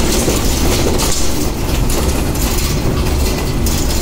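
Road and engine noise inside a moving car's cabin: a loud, steady low rumble with a hiss above it.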